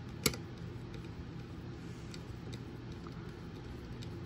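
A hand screwdriver turning a small screw into a robot chassis bracket: one sharp click just after the start, then a few faint ticks, over a steady low hum.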